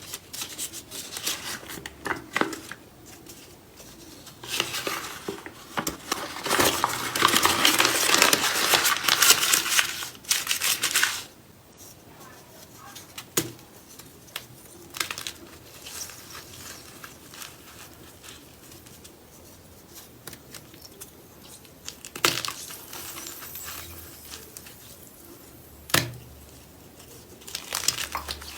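Crunchy slime being squeezed and pressed, giving dense, fine crackling. It is loudest from about five to eleven seconds in, then drops to scattered pops and clicks, with a few sharp snaps.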